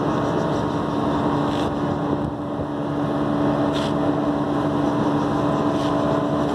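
A steady machine hum with a constant low drone.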